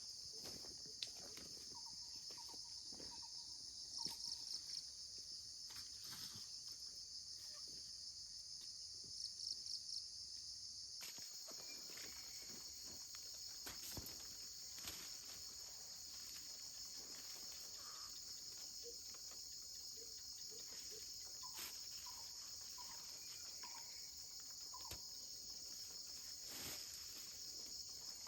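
Steady high-pitched chorus of insects, with two louder pulsing trills about four and nine seconds in and a few faint clicks and taps.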